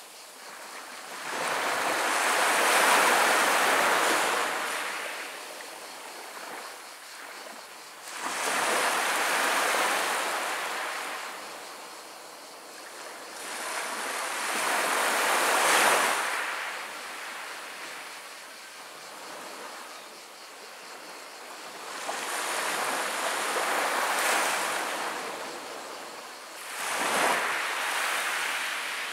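Small sea waves breaking and washing up over a pebble beach, then rolling back over the stones. Five washes, each swelling and fading over a few seconds.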